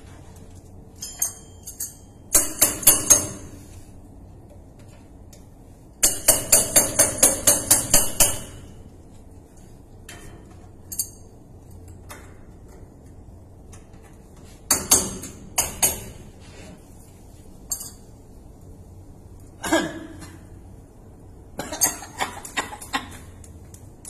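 Sharp metallic clinks and taps in quick runs of about four to five a second, from a hand tool struck and worked against the metal valve fittings of an ammonia line; two longer runs come in the first third, with shorter clusters later.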